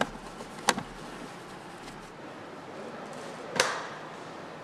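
Sharp clicks of hard plastic as equipment is fitted into a police motorcycle's side case: one at the start, a quick double click under a second in, and a louder knock with a short ring about three and a half seconds in. Steady factory hall noise runs underneath.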